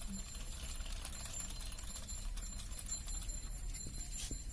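Hand-cranked ceiling-fan coil winding machine turning, a steady rattle of small clicks from its gearing and turn counter.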